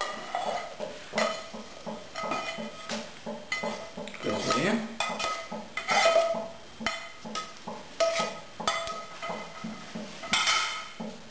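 A slotted spatula scraping and knocking against a frying pan while cooked guanciale is scraped out into a bowl of eggs: a run of uneven scrapes and knocks about once a second, several of them leaving the pan ringing briefly.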